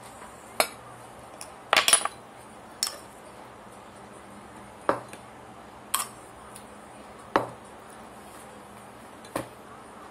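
Metal cutlery clinking against plates and a glass jam jar: sharp, separate clinks every second or two, with a quick cluster of several about two seconds in.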